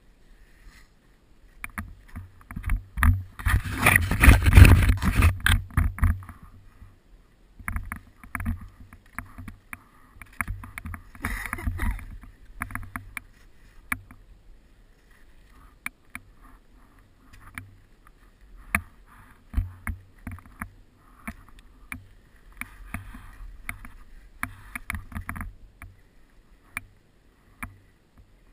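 Deep powder snow crunching and scraping as a fallen skier floundering in it handles his skis, with sharp clicks and clatters of skis and poles. The longest, loudest bout comes about four to six seconds in, then shorter bouts follow.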